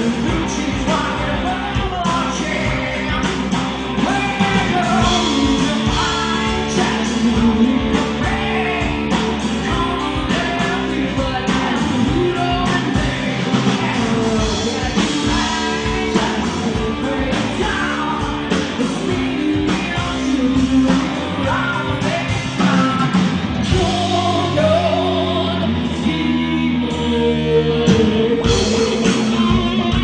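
Live rock band playing: a woman singing over electric guitar, electric bass and a drum kit.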